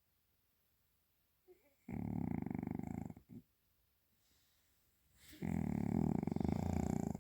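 A cat snoring, deep and loud: two long snores about three seconds apart, the first followed by a short extra snort.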